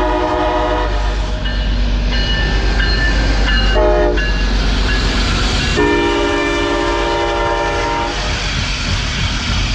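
Lead locomotive's air horn at a grade crossing: a long blast ending about a second in, a short blast about four seconds in, then a final long blast of about two seconds, over the diesel and the rumble and clatter of the passing freight train. This is the tail of the standard long-long-short-long crossing signal.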